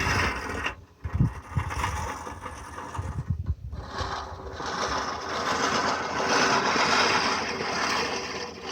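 Newer-generation manual push reel mower running across grass, its spinning reel blades cutting with a steady whirring, briefly dropping out twice.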